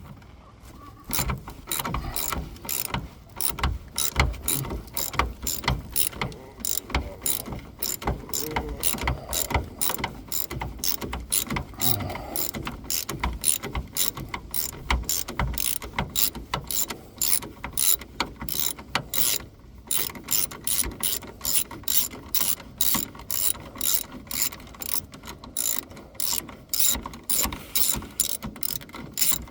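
Hand socket ratchet wrench clicking steadily, roughly two to three clicks a second in runs with short pauses, as a shock absorber mounting bolt on a van is worked loose.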